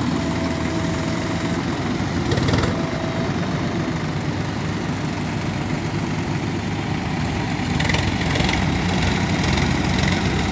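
Heavy diesel engines of tractors and a backhoe running steadily, with a short louder clatter about two and a half seconds in.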